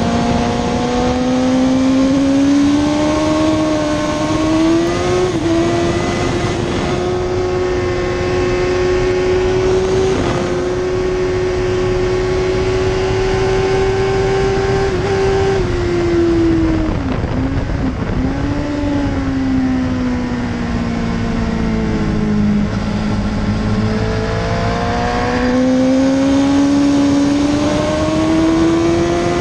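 Suzuki GSX-R1000 K2's inline-four engine at full throttle, pitch climbing and then holding high and nearly steady at top speed on the straight. The bike then brakes hard for a corner: the pitch drops sharply with a few quick jumps as it shifts down, sinks further, then climbs again as it accelerates out, with a gear change near the end. Steady wind rush throughout.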